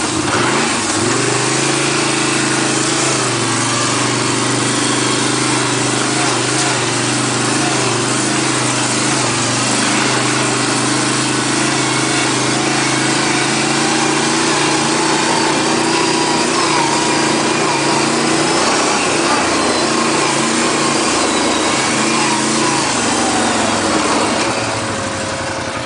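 ATV engine running steadily under way, with a heavy hiss of wind and trail noise; the engine eases off near the end.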